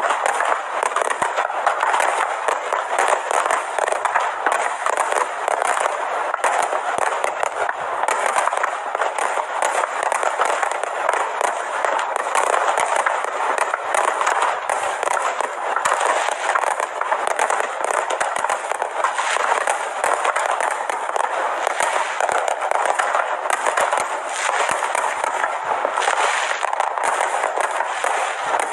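Fireworks display: a dense, unbroken stream of crackling and popping from bursting shells, many sharp cracks a second at a steady level.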